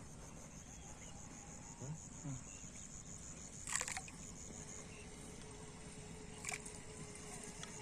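Insects chirring in a steady, fast high-pitched trill, with a couple of brief sharp knocks, one about four seconds in and one near the end.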